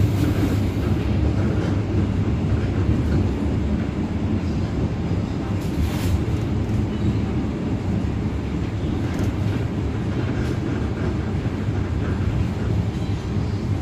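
KA Dhoho local passenger train running along the line: a steady low rumble with a few faint clicks.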